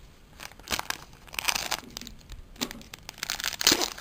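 Foil booster-pack wrapper being crinkled and torn open, in several irregular crackly bursts, the loudest near the end.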